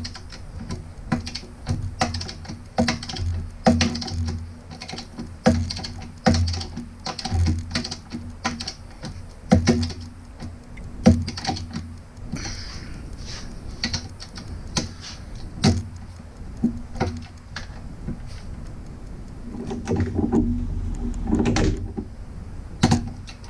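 Hand ratchet clicking in short, irregular runs as the sway bar bolts are tightened down, with a few sharper metallic knocks of the tool on the steel.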